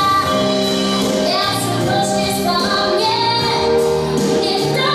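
Song playing: a high singing voice over instrumental accompaniment, with long held notes.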